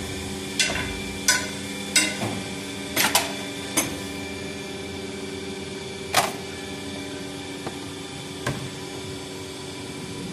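Plastic injection moulding machine running: a steady hum with several sharp, irregular clacks, most of them in the first four seconds and a louder one about six seconds in.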